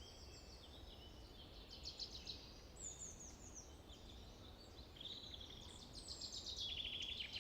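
Birds singing faintly: a string of quick chirps and short falling notes, ending in a rapid trill.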